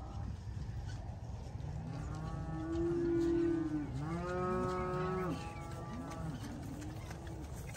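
Beef cattle mooing: two long, loud moos about two and four seconds in, then a few fainter, shorter calls near the end, over a steady low rumble.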